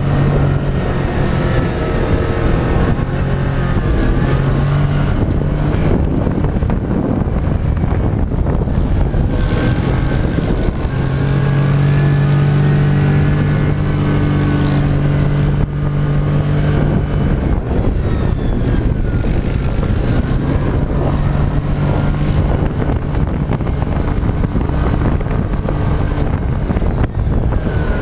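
Dune buggy's engine running as it drives over sand dunes, heard on board, its note rising and falling with the throttle.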